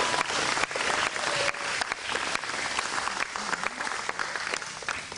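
Audience applauding, thinning out to a few separate claps near the end.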